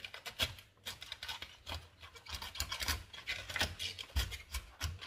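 Kitchen knife cutting through the crisp outer stalks at the base of a puntarelle (Catalogna chicory) head on a plastic cutting board: irregular scraping, snapping strokes with a few dull knocks.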